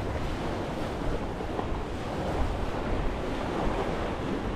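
Waves washing in on a beach shore, with steady wind buffeting the microphone.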